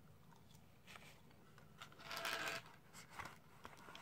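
Cardboard fry box scraped and shifted across the table, with one loud scratchy scrape about two seconds in and a few smaller scrapes and clicks around it, between faint chewing.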